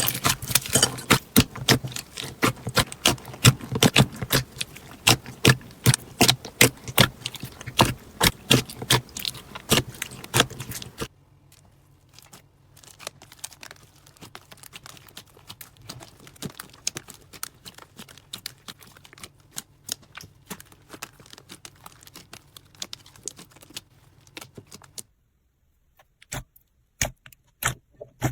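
Hands squeezing and pressing crunchy slime, making rapid crackling clicks and pops. The clicking is loud and dense for about the first ten seconds, then turns much fainter, with a short pause near the end before a few more clicks.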